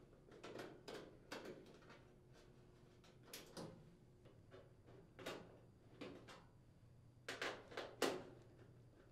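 Faint, irregular clicks and taps of a 1/4-inch nut driver working the mounting screws out of a range's sheet-metal rear access panel, about a dozen small knocks spread unevenly, the loudest near the end.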